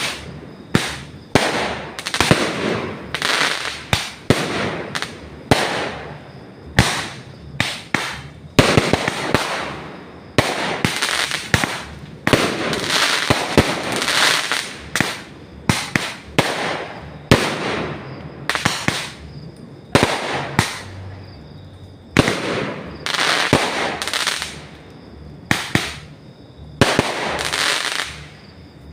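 Fireworks going off in quick succession, sharp bangs about once a second, each followed by a crackling, hissing tail.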